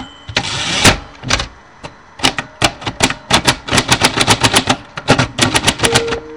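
Typewriter keys striking in quick, irregular runs of sharp clacks. About half a second in there is a half-second rasping burst, and the typing then picks up again in a dense flurry.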